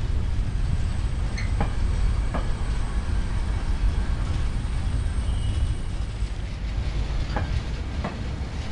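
Freight train wagons rolling past at close range: a steady low rumble of steel wheels on rail, with a few sharp clicks from the wheels. The rumble eases off near the end as the last wagon goes by.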